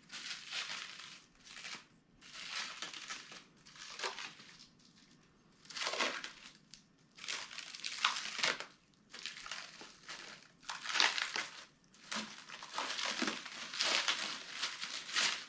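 Plastic packing wrap rustling and crinkling in irregular bursts as parts are unwrapped by hand.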